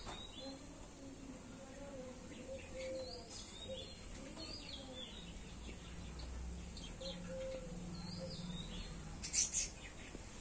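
Small birds chirping: repeated short calls that slide up and down in pitch, with two sharp, louder notes near the end.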